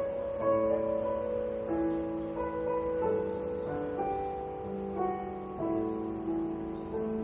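Soft background keyboard music playing slow, held notes that change every second or so.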